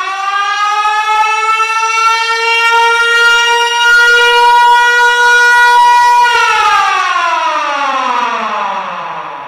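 Military alarm siren sounding one long wail. It rises in pitch to a steady held tone, then winds down in a long falling glide starting about six seconds in.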